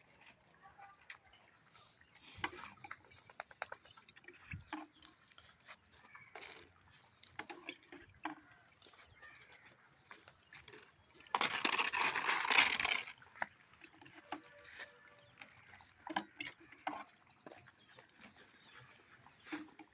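Street dogs eating from plates: scattered chewing, licking and sloshing sounds. A loud, rough burst of noise lasts about a second and a half near the middle.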